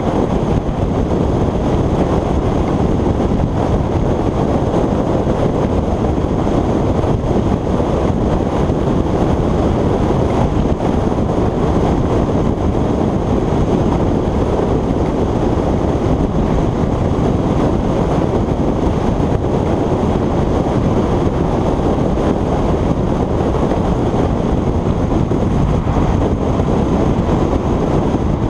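Steady wind noise rushing over the camera microphone of a motorcycle at motorway speed, mixed with road and traffic noise.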